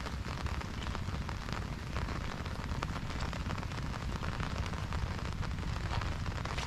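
Steady rain falling, with dense patter of drops striking surfaces over a low rumble.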